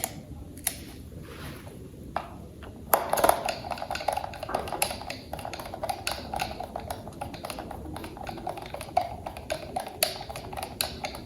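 Plastic toy parts being handled, with a few separate clicks and then, about three seconds in, a dense run of quick irregular clicking and rattling.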